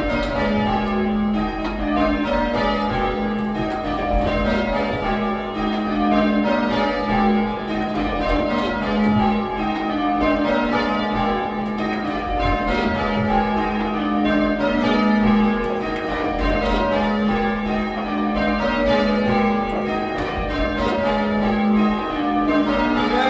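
Six bells change ringing a method: strokes follow one another in a steady, even rhythm as the bells swap places from row to row.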